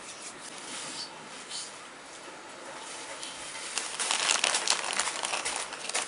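Quiet rustling, then for the last two seconds or so a dense rattling patter of many small hard clicks: silver sugar dragées being shaken out onto the frosted cupcakes.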